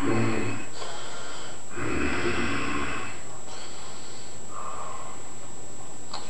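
A man's heavy, breathy snorting and breathing: four bursts, the second, about two seconds in, the longest and loudest.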